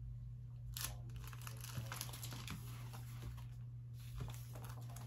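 Faint crinkling and rustling of packaging being handled, in scattered short crackles, over a steady low hum.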